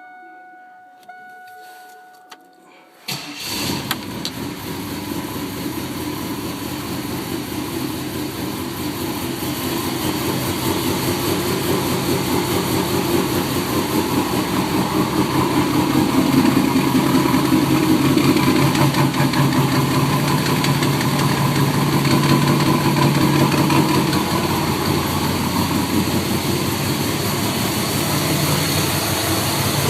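Chevrolet Camaro's LT1 V8 engine starting up about three seconds in, after a few seconds of a steady electronic tone, then running steadily and growing louder over the next dozen seconds.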